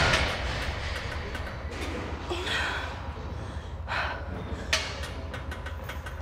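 Plate-loaded hip thrust machine being worked through reps: a loud clank of the loaded lever and plates at the start and a sharp click about two thirds of the way in. Hard breaths from the lifter come between them, over a steady low hum.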